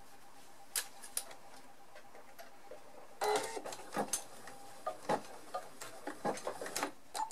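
Scattered, irregular clicks and knocks of handling at a sewing machine as the filled lavender sachet is set under the presser foot, with a denser run of clicks in the second half; no steady stitching run.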